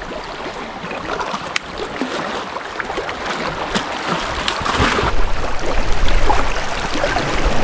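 Small waves splashing and lapping against shoreline boulders, with wind buffeting the microphone that grows stronger toward the end.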